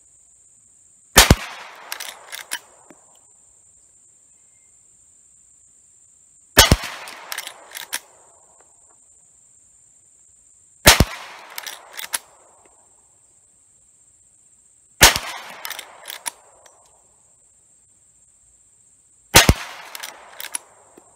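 Five shots from a Rossi R92 lever-action carbine chambered in .357 Magnum, firing .38 Special cast-bullet handloads, spaced about four to five seconds apart. After each shot come a few quick metallic clicks as the lever is worked to eject the case and chamber the next round.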